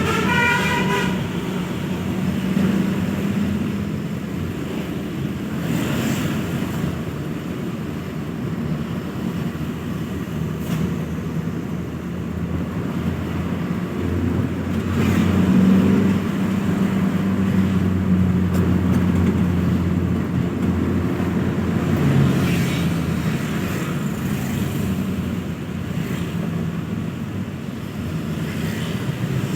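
Bus engine running with road-traffic noise, growing louder around the middle; a multi-tone basuri musical horn melody cuts off about a second in.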